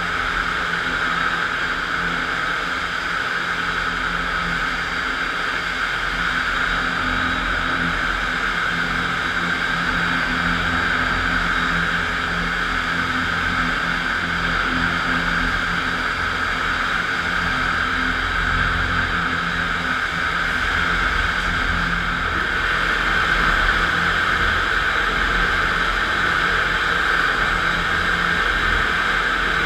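FastPrep electric concrete floor grinder and polisher, driven by a 7.5 hp Baldor motor through a serpentine belt, running steadily with a constant hum and a loud even hiss.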